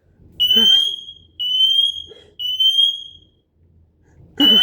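Smoke detector sounding its alarm in the three-beep pattern: three loud, high-pitched beeps, each rising slightly in pitch, then a pause of about a second before the next set of three begins near the end.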